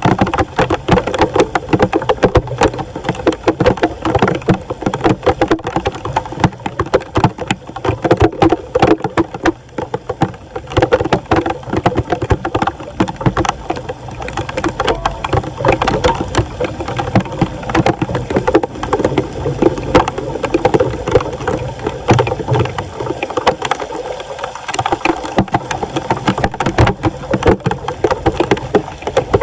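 Floodwater splashing and sloshing around a street drain, with many small irregular knocks.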